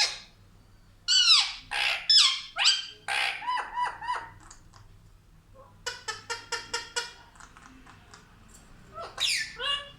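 Pet parrot squawking: loud falling screeches about a second in, softer calls after, a quick run of short clicking notes around the middle, and another squawk near the end.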